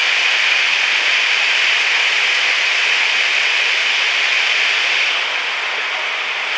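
Steady rushing of water flowing through a concrete culvert channel, a little softer from about five seconds in.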